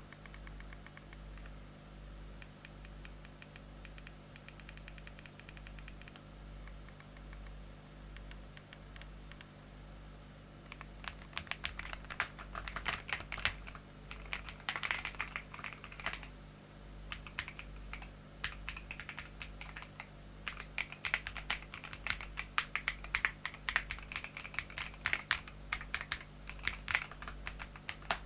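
Typing on an ASUS ROG Azoth X mechanical keyboard. There are faint, sparse keystrokes at first, then rapid, continuous key clicks from about ten seconds in.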